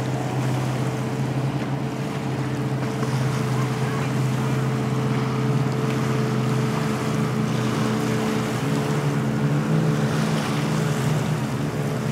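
1972 Ramsay Rebel ski boat running at speed on the water, its engine a steady low drone; the note shifts slightly higher about eight seconds in.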